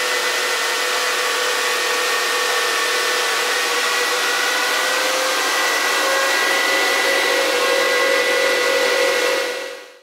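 Bitmain S19 bitcoin miner running with its stock Bitmain power supply: a loud, steady rush of cooling fans with a held midrange whine and a higher one above it. It fades in at the start and fades out near the end.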